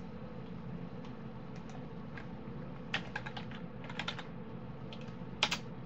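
Clicks of a computer mouse and keyboard: a quick run of clicks about three seconds in and one sharper click near the end, over a steady low hum.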